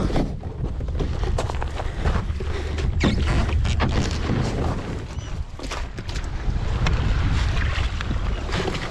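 Wind rumbling on the microphone over water splashing irregularly around a kayak at sea.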